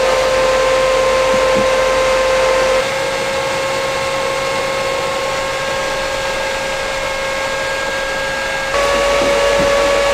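Ninja Foodi multicooker running in steam-bake mode: its convection fan gives a steady whine over a hiss of air and steam. The whine steps a little higher and louder near the end.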